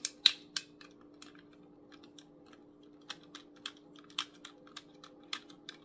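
Small screwdriver driving a tiny screw back into the plastic battery cover of a toy RC truck, with hands handling the plastic body: a run of irregular light clicks and ticks.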